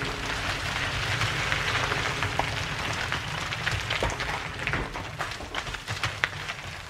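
A Volvo 240 sedan pulling away, its engine rumbling low under tyres crackling over a gritty driveway. The sound fades near the end as the car drives off.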